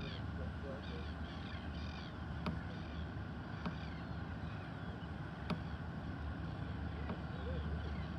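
Birds calling: groups of short, harsh repeated notes, over a steady low rumble, with three sharp clicks.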